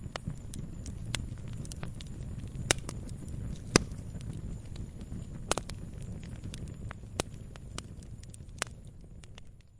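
Campfire of burning wood crackling, with a low steady rumble and irregular sharp pops, a handful of them loud. The sound fades down near the end.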